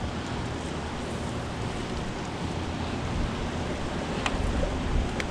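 Steady rush of turbulent river water below a dam, with wind buffeting the microphone. Two faint clicks come near the end.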